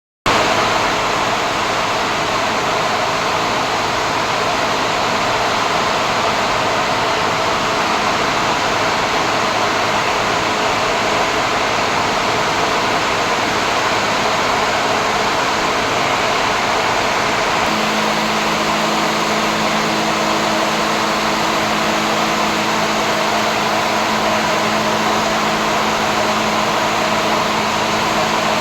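Machinery running with a steady rushing, airflow-like noise. A low steady hum joins in about 18 seconds in.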